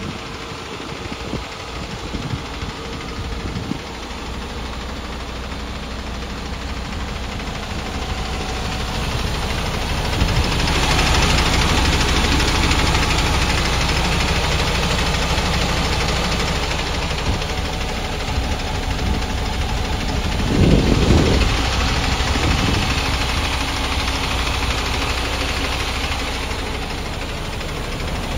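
MAN TGS 18.480 truck's six-cylinder diesel engine idling steadily. It gets louder about ten seconds in, with a brief louder burst about twenty seconds in.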